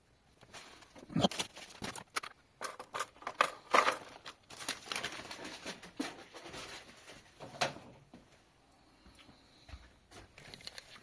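Irregular clicks, taps and short scrapes of hand work on a transmission on the bench, busiest in the first two-thirds and thinning out near the end.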